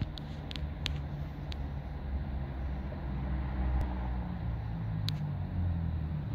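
Low, steady rumble of a vehicle engine running, with a few scattered light clicks.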